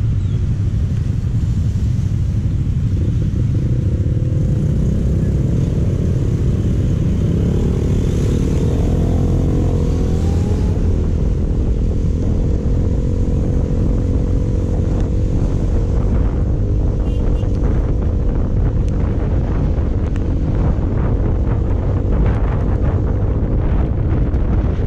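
Wind rushing over the microphone of a moving motorcycle, with the engine's steady drone underneath; the engine note shifts up in pitch about eight seconds in.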